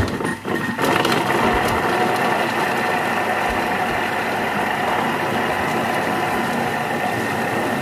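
Thermomix motor running steadily, its blade spinning and mixing butter with chopped garlic in the bowl; a few light knocks at the start before the steady running settles in about a second in.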